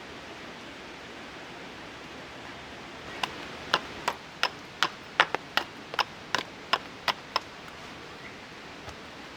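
Steady hiss of rain falling. About three seconds in, a quick run of about a dozen sharp knocks, roughly three a second, lasting some four seconds.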